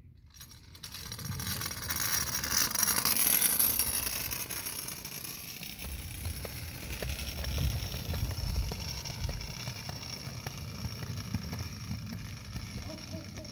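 Children's kick scooters rolling and rattling over pavement and sidewalk, loudest a few seconds in, over a low rumble, with a few light clicks later on.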